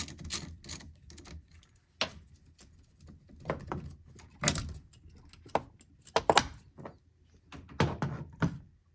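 Socket ratchet clicking quickly as the positive battery terminal nut is worked loose, then scattered sharp clicks and knocks of metal cable terminals and plastic parts being handled on top of the battery.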